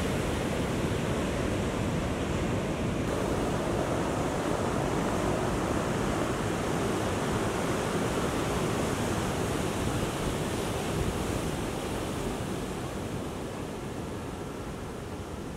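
Heavy ocean surf: large waves breaking in a steady rush of noise that eases a little near the end.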